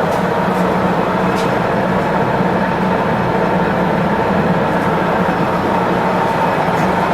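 King Rich 18x40 gap bed lathe running under power, with the carriage on power longitudinal feed: a steady mechanical hum and gear whine. A few faint light clicks in the first second and a half.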